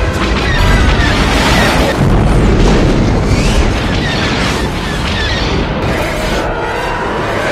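Space-battle film soundtrack: orchestral score mixed with continuous booming explosions and starship effects.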